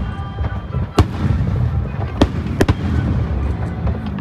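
Aerial firework shells bursting in a large display: sharp bangs, the loudest about a second in and two close together a little past two seconds, over a steady low rumble.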